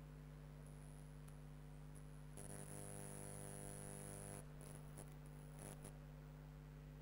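Faint, steady electrical hum with a buzz on top; the buzz grows louder for about two seconds a little over two seconds in, with a high whine, then a few faint clicks follow.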